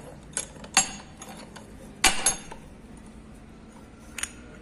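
Metallic clinks and knocks of a puller and hand tools on a Peugeot 208 air-conditioning compressor pulley held in a vise, as its bearing is being drawn out. There are four or five separate clinks, the loudest about two seconds in with a short ring.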